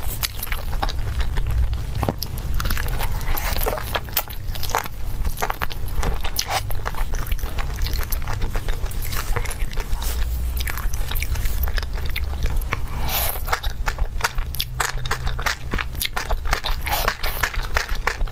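Close-miked eating: biting and chewing spicy grilled meat and skewered food, with many wet crackles and crunches one after another over a low steady hum.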